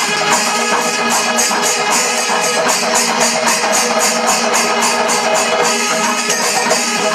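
Kerala panchavadyam ensemble playing: timila drums and ilathalam cymbals in a rapid, even beat, with kombu horns sounding steady held notes underneath.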